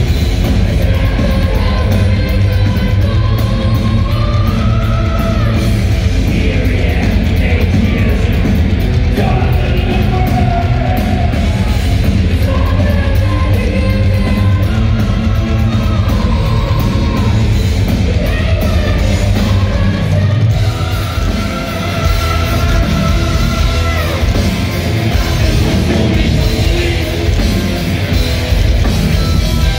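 Heavy metal band playing live, with electric guitars, bass and drums under a male lead singer, loud and close to the stage PA. The low end drops away briefly about two-thirds of the way through.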